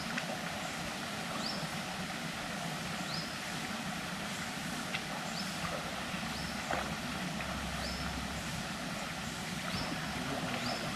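A short rising animal call, repeated about every second and a half, over a steady outdoor hiss, with a couple of faint knocks.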